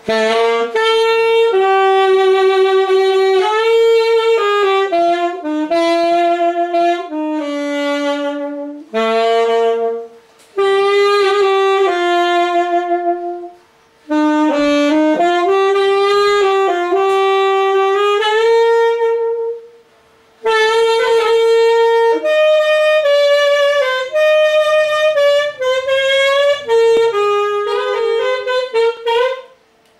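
Yamaha YAS-280 alto saxophone played solo: a flowing melody in phrases of several seconds, with short breaks for breath between them.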